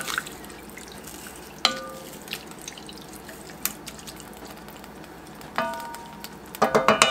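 Wooden spoon stirring green beans and their liquid in an enamelled Dutch oven, a steady wet sloshing, with the spoon knocking the pot a few times. About a second and a half in and twice near the end each knock leaves a brief ringing tone.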